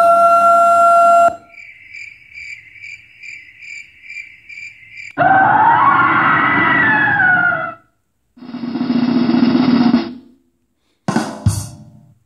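Sound-effect clips played loud through an ION Block Rocker Max portable speaker. A siren tone cuts off about a second in. A steady run of cricket chirps follows, then a noisy effect with pitch sweeping up and down, then a lower noisy effect, and two quick drum hits near the end.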